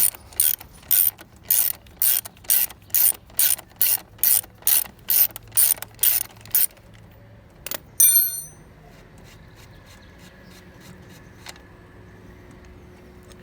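Half-inch ratchet with a 19 mm socket clicking in quick, even strokes, about two or three clicks a second, as it backs off the scooter's front axle nut. About eight seconds in there is a sharp metallic clank with a brief ringing, then only a faint steady hum.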